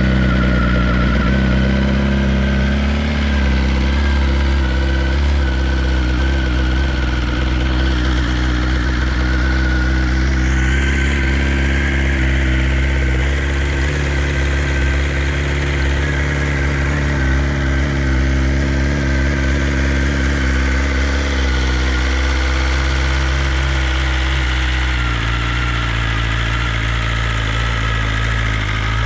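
2020 BMW S1000RR's inline-four engine idling steadily through an Akrapovic slip-on exhaust just after a cold start. Its note changes slightly near the end.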